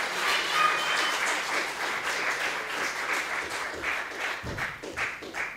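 Audience applauding, the clapping thinning out and cutting off suddenly near the end.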